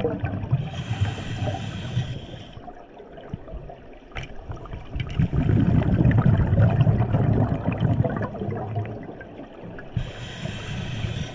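Scuba diver breathing underwater through a regulator. A hiss on each inhale comes about a second in and again near the end. Between them the exhaled bubbles rumble and gurgle.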